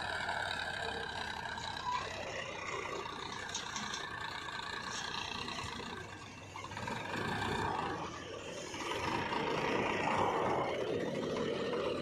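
Powertrac 434 DS Plus tractor's diesel engine running steadily as it pulls forward slowly with its tipping trolley raised, unloading soil; the sound dips briefly around the middle and then grows louder again.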